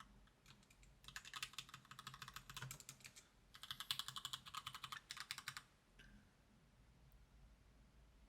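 Fast typing on a custom mechanical keyboard with an acrylic housing: two runs of quick keystrokes, each about two seconds long, starting about a second in and again near the middle.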